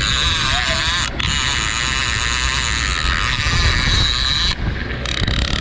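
A boat's engine running underway, with wind on the microphone and a loud hiss of the churning wake; the hiss cuts out briefly about a second in and again near the end.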